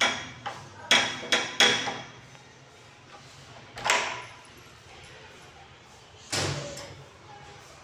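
A metal tower-bolt latch on a wooden door being rattled and banged as a knock: a quick run of about five sharp metallic clanks in the first two seconds, then two more single bangs, one about four seconds in and a heavier one about six seconds in.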